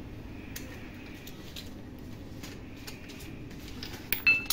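Metal engine parts and tools being handled, with scattered faint clicks, then a sharp metallic clink that rings briefly near the end; a steady low hum underneath.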